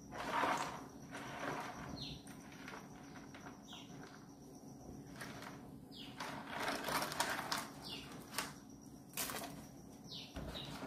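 A hand sloshing and splashing in a plastic basin of water while grabbing live forest crabs, in a string of short, irregular splashes.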